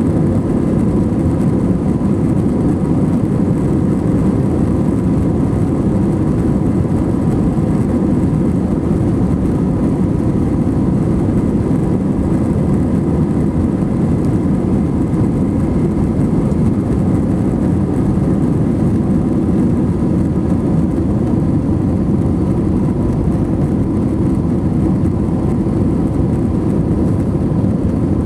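Steady cabin noise inside an Airbus A321-231 in flight: a low, even rush of airflow and engine noise, with a few faint steady tones above it.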